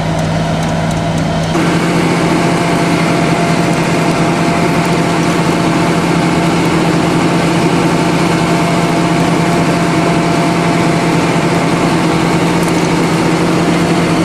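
Engine running steadily with a constant hum. About a second and a half in, its note shifts higher and it gets a little louder, then holds steady.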